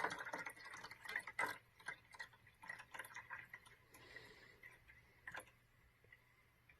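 Faint, irregular light clicks and taps, dense at first and thinning out toward the end.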